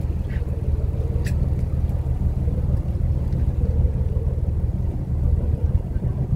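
Steady low rumble of a fishing boat's engine running, with wind buffeting the microphone. A single light click about a second in.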